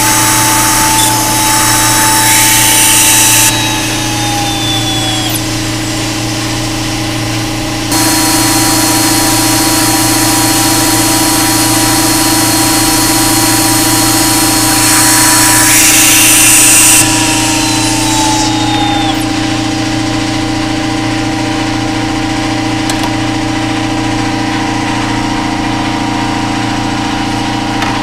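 CNC PCB prototyping mill running: the spindle whines at high speed with a cutting hiss, spins down with a falling whine about four seconds in, starts again abruptly about eight seconds in, and spins down again after about seventeen seconds. A steady low machine hum runs underneath throughout.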